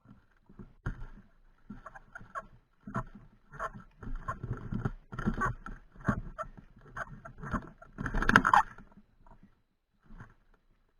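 Irregular rustling and scraping from movement and handling of an airsoft rifle carrying a mounted camera, with a louder, sharper scrape about eight seconds in before it goes quiet.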